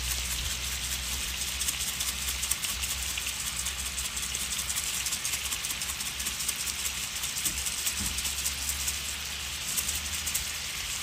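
Chicken pieces sizzling steadily in olive oil in an electric skillet, a dense fine crackle.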